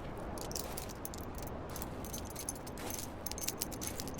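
A bunch of keys jangling, many small irregular metal clinks as they are taken out and handled, over a steady background hiss.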